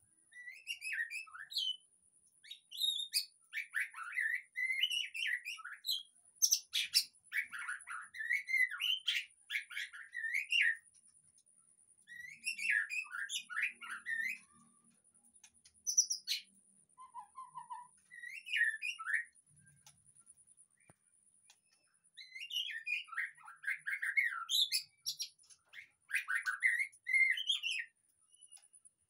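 White-rumped shama (murai batu) singing: rapid, varied whistled phrases and chattering trills in bursts of a few seconds, with short pauses between them.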